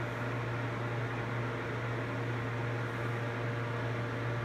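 Steady low machine hum with an even hiss behind it, unchanging throughout.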